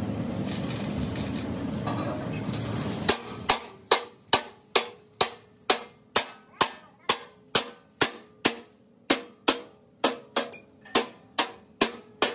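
A steady noise for about three seconds, then a hammer striking steel in an even rhythm: about two ringing blows a second, some twenty in all.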